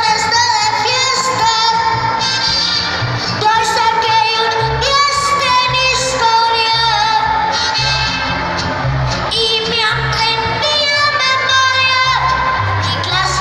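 A young boy singing into a microphone over backing music with a steady bass beat, his voice amplified through the stage sound system.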